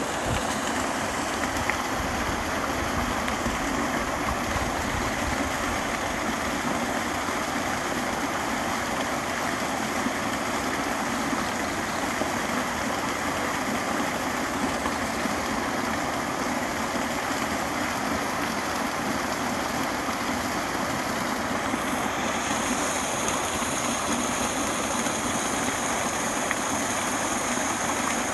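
Creek water rushing steadily. About three-quarters of the way through, a thin, high steady tone joins it and holds to the end.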